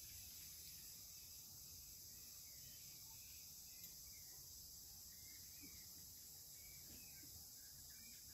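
Near silence: a faint, steady high hiss of outdoor background, with a few faint chirps in the second half and a single small tick about four seconds in.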